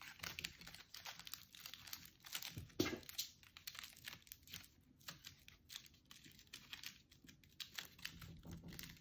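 Aluminium foil crinkling and crackling faintly as hands squeeze it around a foil figure sculpture, in irregular small crackles with one louder crunch about three seconds in.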